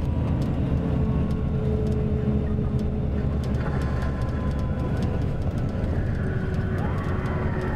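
Mercedes-Benz OM-457LA inline-six turbodiesel of a double-decker coach running at a steady low drone while under way. The uploader hears wear in the engine, which has run more than two million kilometres.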